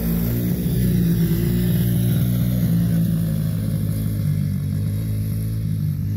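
Small single-cylinder engines running steadily at low revs: a Honda XR50 mini dirt bike ridden slowly, with a Coolster 125 ATV's engine also running.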